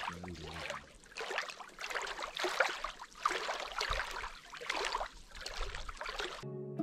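Water lapping and splashing in irregular strokes. Plucked-string music comes in near the end.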